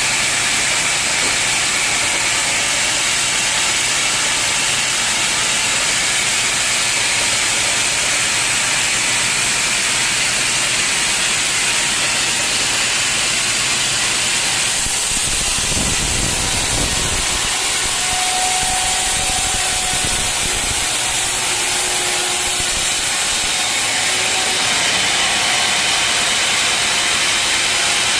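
Sawmill saw cutting through an old teak log: a steady, loud hissing cutting noise, with a brief low rumble and a few knocks about halfway through.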